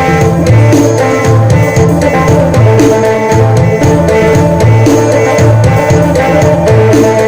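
Isan phin sing music: a phin (northeastern Thai lute) melody over drum kit and bass, with a steady beat.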